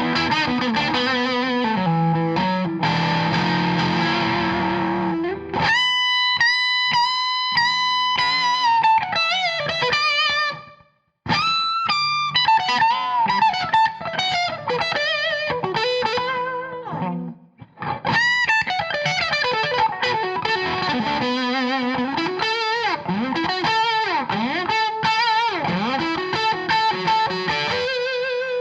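Electric guitar through a Suhr SSV+ bridge humbucker playing blues licks: held notes and string bends, with two short pauses between phrases.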